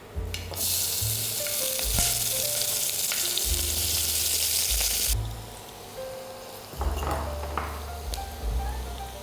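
Food sizzling in hot oil in a pan: a loud burst of sizzling starts about half a second in and drops off sharply after about five seconds. Quieter sizzling and stirring follow, with a few light clinks near the end.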